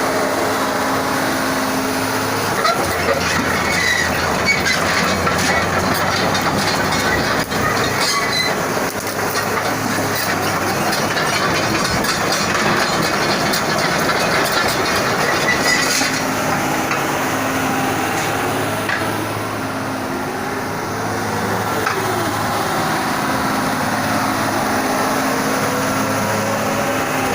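Komatsu PC200-6 excavator's six-cylinder diesel engine running steadily, with rising and falling hydraulic whines and rattling clicks as the machine works. A short dip in level comes a little past two-thirds of the way in.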